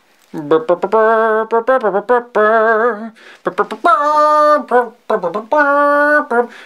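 A man singing a wordless tune a cappella, in short phrases of held notes with brief gaps between them.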